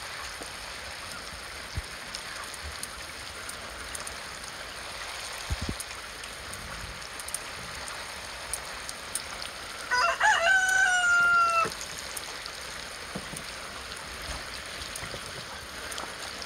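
Domestic geese splashing in the water of a shallow plastic pool as they mate, a steady wash of water noise with sharp splashes. About ten seconds in, one loud bird call, drawn out for nearly two seconds and falling slightly in pitch.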